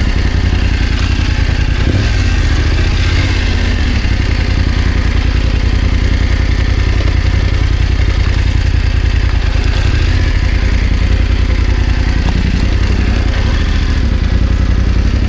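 BMW F900GS's parallel-twin engine running steadily at low revs.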